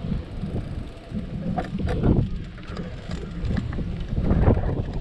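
Wind buffeting the microphone of a camera moving along behind a child's bicycle on a concrete sidewalk, a steady low rumble with louder surges about two seconds in and again near the end.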